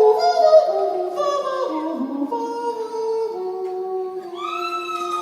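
A cappella voices singing wordless held notes in close harmony, the lines stepping downward in pitch, with a new high note coming in near the end.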